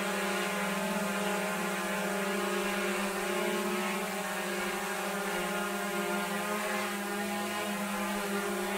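DJI Mavic 2 Pro quadcopter hovering, its propellers giving a steady hum: a low drone with several higher tones stacked above it, about 70 dB close by.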